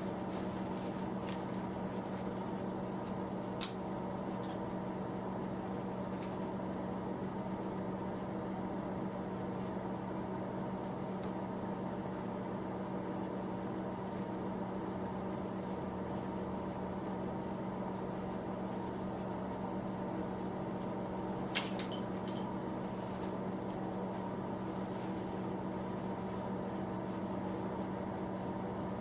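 Small electric heater running with a steady hum, broken by a sharp click about four seconds in and a quick cluster of clicks about twenty-two seconds in.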